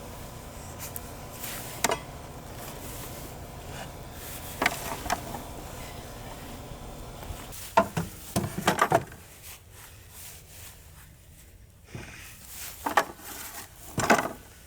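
Scattered knocks and clatters of wooden deck boards being handled and set down. There is a short cluster of knocks partway through and a few more near the end.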